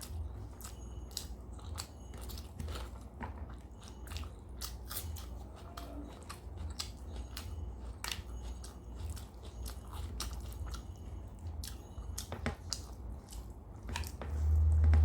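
A person chewing and biting food in mukbang style, with many short wet mouth clicks and smacks and some crunching. A loud low rumble swells near the end.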